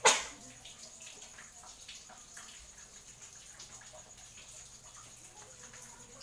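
Diced silk squash (patola) sizzling and crackling in oil in a wok, with many small pops over a steady hiss. A single loud, sharp burst of sound comes right at the start and fades within a fraction of a second.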